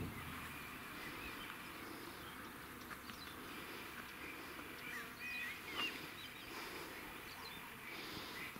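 Faint outdoor quiet with a few short, scattered bird chirps.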